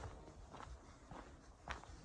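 Footsteps walking on a concrete paver road, faint, about two steps a second.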